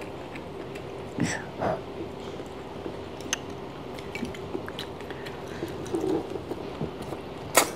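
Soft eating sounds at a table: chewing and light clicks of tongs and spoons against bowls, with a sharper click near the end, over a steady low hum.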